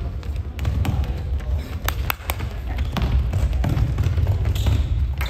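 Basketball play on an indoor court: thuds of the ball bouncing and of players' feet on the floor, with a few sharp knocks about two seconds in.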